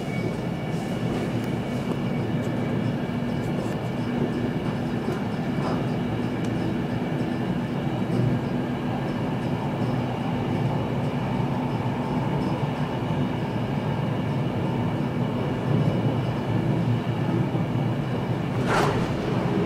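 Inside an old X10 electric commuter train running at speed: a steady rumble with steady whining tones over it, and a single sharp knock near the end.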